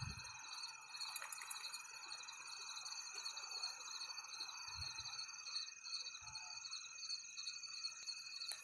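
Crickets chirping in a steady, pulsing chorus, with a couple of faint low thumps around five and six seconds in.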